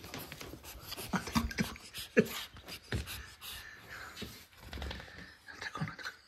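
A cat moving about in and climbing out of a cardboard box: irregular rustles, scrapes and light knocks against the cardboard, with a sharper knock about two seconds in.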